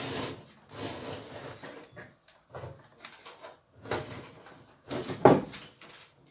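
Sheet-metal parts of the oven's base being slid and knocked into place while the new bottom heating element is fitted: scattered scrapes and clunks, the loudest a sharp knock about five seconds in.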